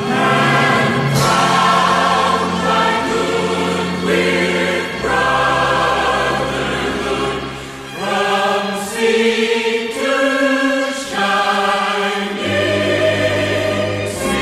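A choir singing with instrumental accompaniment, holding sustained chords that change every second or two.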